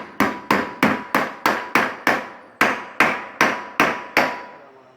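Rubber mallet tapping a new ball bearing into a ceiling fan's bearing housing, about thirteen sharp, evenly paced blows, roughly three a second with a brief pause partway through, driving the bearing until it seats.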